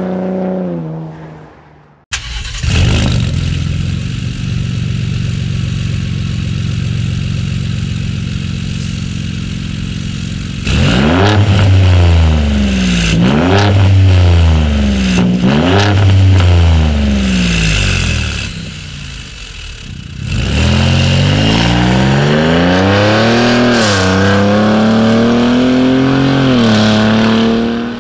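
Ford F-150 Raptor's twin-turbo V6 exhaust. First the stock exhaust fades as the truck pulls away. Then, on a Borla ATAK exhaust, it idles steadily, is blipped four times in quick revs, and near the end accelerates through an upshift.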